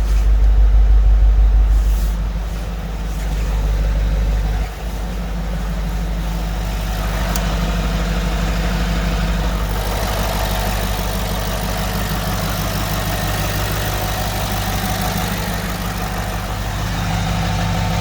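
Audi 4.2 TDI V8 diesel engine running, louder in the first two seconds and again briefly around four seconds, with a short dip just before five seconds, then settling into a steady idle.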